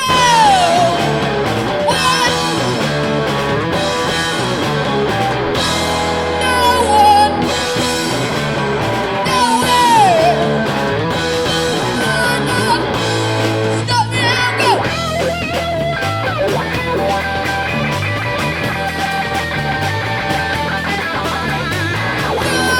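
Rock band playing loud and steady, with electric guitar and a singing voice.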